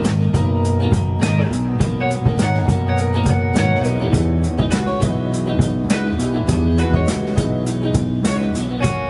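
Band playing live: electric guitars over a drum kit keeping a steady beat.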